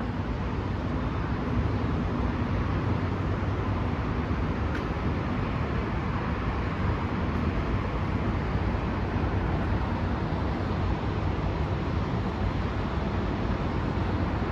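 Steady road traffic noise, an even rumble and hiss of vehicles with no single vehicle clearly rising and fading past.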